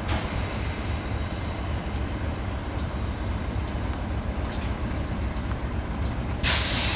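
GE B23-7 diesel locomotive's 12-cylinder engine running with a steady low rumble as it moves slowly. Near the end comes a short, loud hiss of released air.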